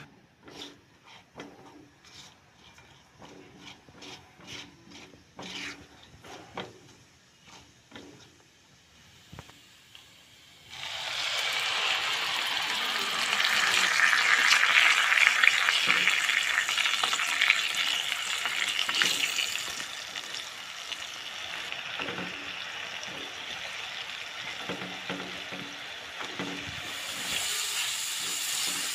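A spatula tapping and scraping in a nonstick kadai over whole spices in oil. About ten seconds in, a loud sizzle starts suddenly as a wet paste goes into the hot oil. The sizzle eases after several seconds and carries on more quietly while the paste is stirred and fried.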